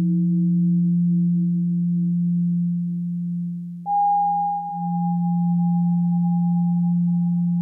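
Modular synthesizer patch (Make Noise 0-Coast feeding Plaits through a quantizer) holding pure, sine-like tones. A low note sustains throughout, a middle note fades away, and a new higher note enters suddenly about four seconds in and holds. The note changes come from a stepped random voltage quantized to pitch.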